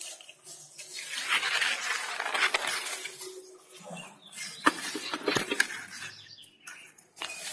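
Leaves and branches rustling as figs are picked by hand, with a few sharp clicks about halfway through.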